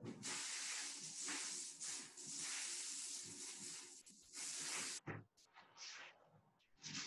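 A rushing hiss for about five seconds that cuts off suddenly, followed by faint scattered noises.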